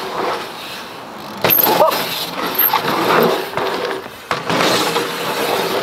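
Dirt jump bike's tyres rolling over packed dirt jumps and berms, a steady rushing noise, with sharp thumps about a second and a half and about four seconds in.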